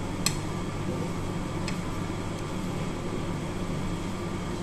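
Steady machine hum, like a fan or ventilation unit running, with two faint clicks near the start.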